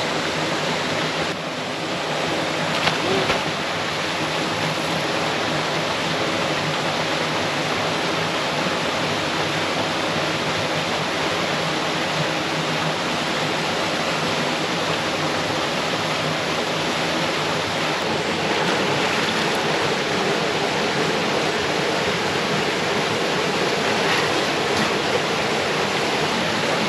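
Stream water rushing steadily.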